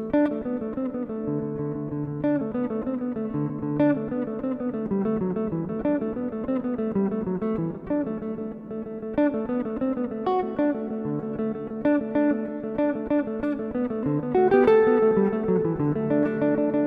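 Instrumental guitar music: plucked notes picked in a running melody over lower held notes, growing a little louder near the end.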